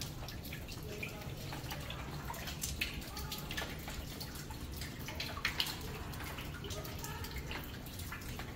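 Water leaking through the ceiling, dripping and splashing into plastic buckets and bins on a wet floor, in many irregular drops. The leak is a sign of storm damage to the building.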